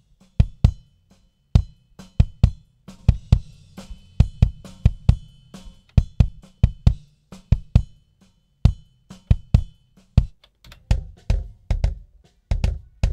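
Kick drum from a recorded drum-kit performance, heard through its own soloed microphone channel on a digital mixing console with EQ and compression: a groove of repeated deep kick hits, each with a sharp click on the attack. Snare and cymbals leak in faintly behind the kick.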